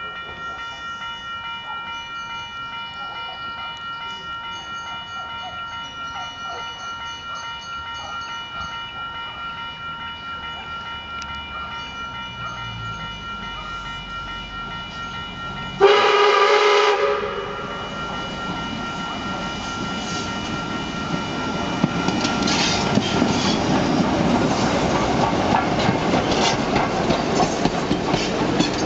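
Level crossing warning bell ringing steadily. About halfway through, a steam locomotive's whistle sounds once for a second or so, loud. It comes from South Australian 620 class Pacific No. 621, and then the train's rolling and wheel clicks on the rails grow louder as the locomotive draws up and passes.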